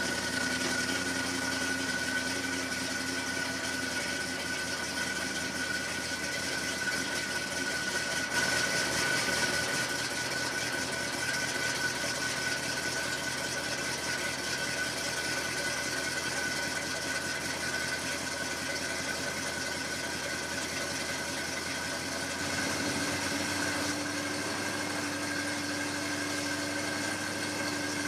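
1963 Chevrolet C10 rat rod's engine idling steadily just after a cold start, with a thin, steady high whine over the idle.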